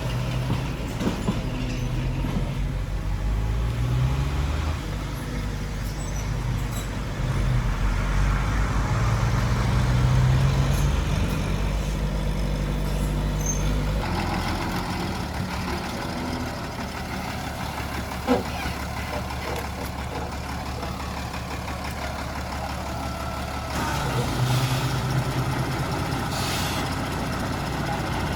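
Heavy diesel engine of earthmoving machinery running and revving under load, its pitch rising and falling several times. The sound changes abruptly about halfway through and again near the end, with one sharp knock in between.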